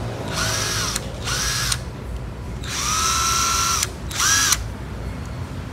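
Ozito cordless drill-driver motor whirring in four short trigger pulls, each spinning up and winding down. The third pull is the longest, about a second.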